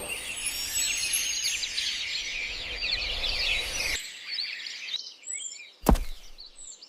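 Dense chorus of many small birds chirping at once, cutting off abruptly about four seconds in and leaving a few scattered chirps. A single sharp thud sounds near the end.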